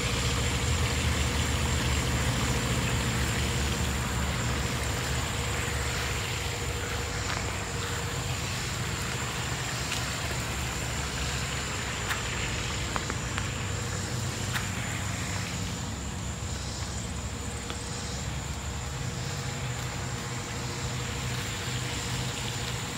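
A steady low motor-like rumble with a thin steady high tone over it, easing off slightly in the second half.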